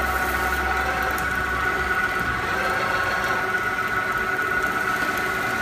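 Multi-point riveting machine running with a steady hum of several tones; a low rumble under it stops about two seconds in.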